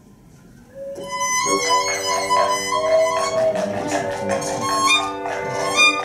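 Violin playing, entering about a second in and going on as a live ensemble piece, over several steady held notes.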